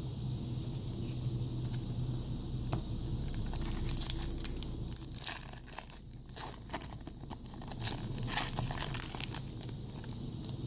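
A foil trading-card pack wrapper being torn open and crinkled by hand, a dense run of crackles lasting several seconds and fading out near the end.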